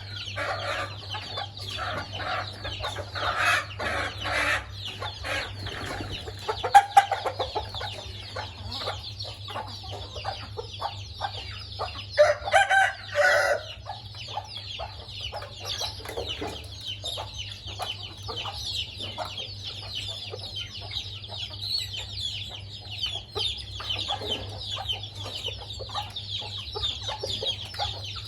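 Chickens clucking while feeding, with a louder call in three parts about twelve seconds in, over a steady high buzz.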